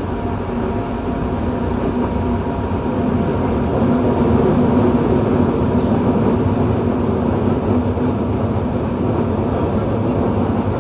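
Running noise of a Yokohama Municipal Subway 3000A-series train with Mitsubishi GTO-VVVF inverter drive, heard from inside the car: a steady rumble of wheels on rail with a few steady tones, at an unchanging speed, growing a little louder a few seconds in.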